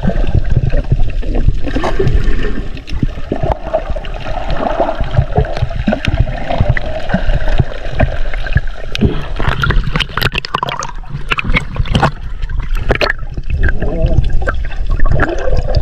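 Muffled gurgling and sloshing of seawater around a camera held just under the surface, with a steady low rumble and scattered sharp clicks and knocks that come more often in the second half.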